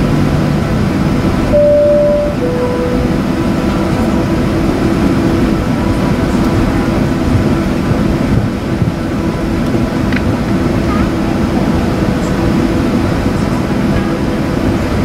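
Steady engine and air noise inside a Boeing 737 cabin while the jet taxis. About one and a half seconds in, a two-tone cabin chime sounds, a higher note followed by a lower one.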